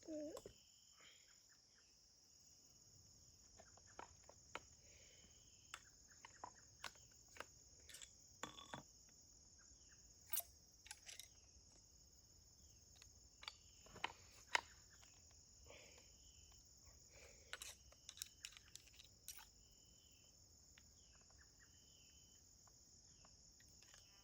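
Crickets chirring steadily and high, with scattered light clicks and taps from handling a muzzleloading pistol as a patched round ball is loaded. The loudest taps come about fourteen seconds in.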